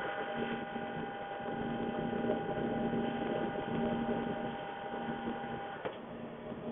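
A machine running steadily: a hum with a steady whine and a lower tone that repeatedly comes and goes. The whine stops about six seconds in, with a soft click.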